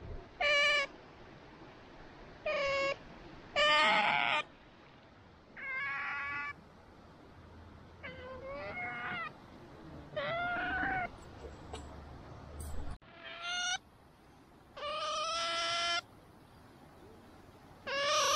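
Asian small-clawed otter calling over and over in high-pitched whining squeals, about nine calls, each a second or less. The otter is begging for food that is still too hot to give it.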